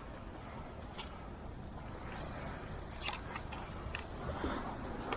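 Footsteps on a beach: a handful of sharp, irregular clicks over a steady outdoor hiss.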